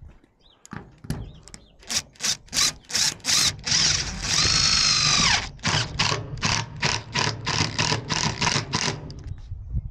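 Power drill run on a wooden siding board in short trigger bursts, about three a second. About four seconds in comes one longer steady run whose pitch drops as it stops, followed by more short bursts.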